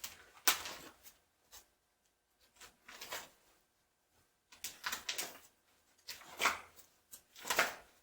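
Paper rustling in several short bursts as sheets of technical drawings are handled and leafed through.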